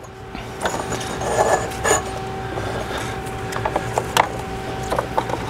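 Hands working a braided rubber hose and its fittings around an engine's intake manifold: rubbing and handling noise with several small clicks and taps, one sharper click about four seconds in, over a faint steady hum.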